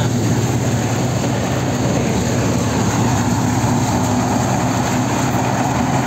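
An engine running steadily at constant speed, a low even hum with no change in pitch or loudness.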